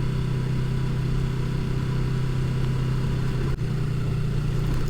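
Engine of a 300 cc motorcycle running at a steady speed under way. The engine note breaks briefly about three and a half seconds in.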